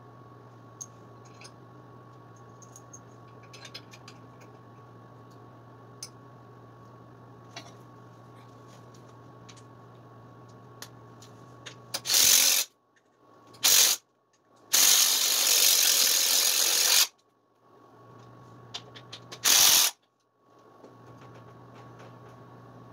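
Cordless impact wrench run in four short bursts, the third about two seconds long, tightening a fastener on a GY6 scooter's rear wheel axle. Before it, light clicks and clinks of small metal parts being handled.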